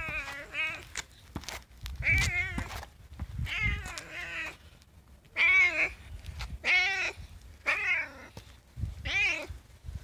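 Tabby cat meowing over and over, close to the microphone: about eight drawn-out meows with a wavering pitch, roughly a second apart.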